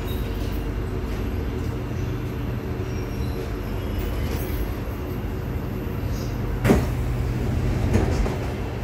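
Steady low hum inside the cabin of a Kawasaki Heavy Industries & Nippon Sharyo C751B metro train at the platform, then a sharp clunk about seven seconds in as the saloon doors open, with a smaller knock a second later.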